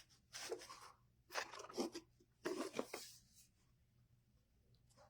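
Ribbon being handled and crinkled in three short rustling bursts.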